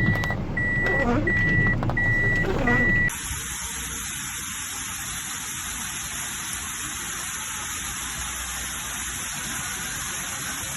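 Steady rush of heavy tropical-storm rain and wind, cutting in abruptly about three seconds in. Before it, a high electronic beep repeats about twice a second over a wavering tone and a low vehicle rumble.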